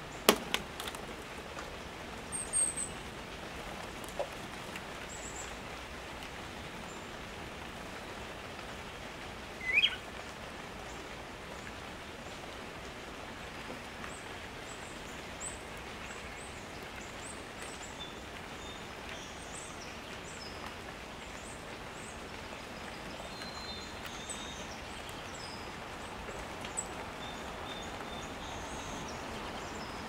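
Small wild birds giving faint, very high chirps over a steady background hiss. A sharp tap comes just after the start, a few lighter clicks follow a couple of seconds later, and a short rising call comes about ten seconds in.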